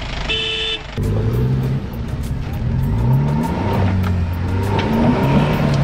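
Mahindra Thar's engine revving up and down in repeated swells as it works over a rock pile, with background music carrying a quick ticking beat.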